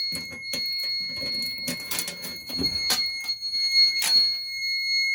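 Fire alarm control panel's trouble sounder giving a steady high-pitched tone, signalling a trouble condition: a NAC 1 fault from a missing end-of-line resistor. Clicks and knocks of the panel being handled come over it, loudest about three and four seconds in.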